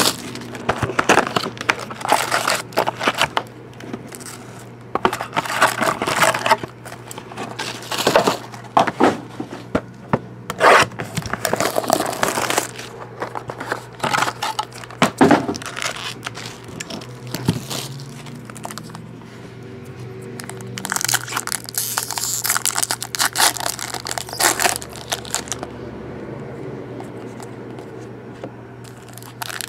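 Plastic shrink wrap crinkling and tearing in irregular bursts as it is stripped from a sealed baseball card hobby box, with the box and its foil packs being handled and set down.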